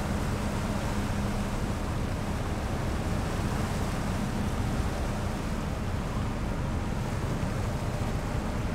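Queen of Capilano ferry under way: a steady low drone from the engines with the rush of propeller wash churning the water astern. A low hum in the drone fades out a couple of seconds in.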